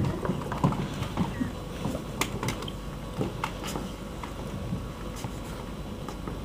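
Scattered light knocks, clicks and shuffling as furniture and props are moved about on a darkened stage during a scene change, with a thump at the start and a faint steady hum underneath.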